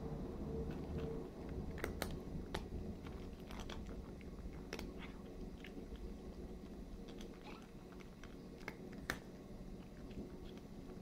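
A domestic cat chewing and crunching dry kibble from a stainless steel bowl: irregular sharp crunches, a few louder ones about two, five and nine seconds in, over a steady low hum.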